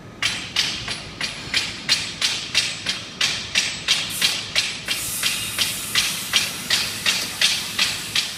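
Micro gravure coating machine running, with a regular hiss that pulses about three times a second, each pulse sharp at the start and quickly fading; the pulsing starts suddenly.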